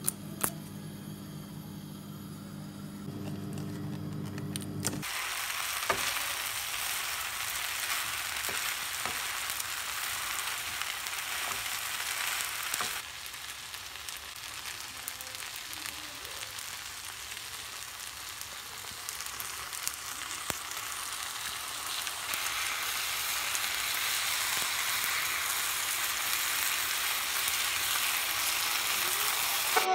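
A low steady hum for the first five seconds, then a stir fry of noodles, prawns and vegetables sizzling in a hot frying pan, with the knocks and scrapes of a wooden spoon stirring it.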